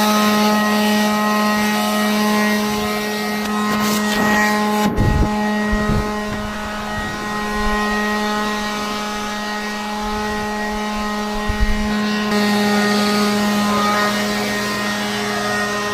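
Leaf blower running steadily: a constant motor hum under a rush of air. There are a few low thumps about a third of the way in and again near the end.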